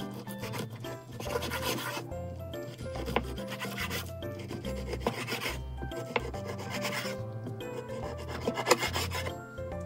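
Kitchen knife drawn through a raw salmon fillet in several slicing strokes, each a rasping scrape with the blade rubbing on the wooden cutting board beneath.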